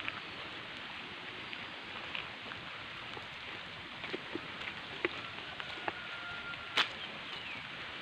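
Light rain falling: a steady soft hiss with scattered drop taps, one sharper tap near the end.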